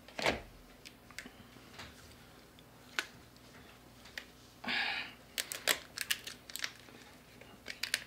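Cooked lobster shells cracking and snapping as they are broken apart by hand, heard as scattered sharp clicks and crackles, with a quick run of them a little past the middle.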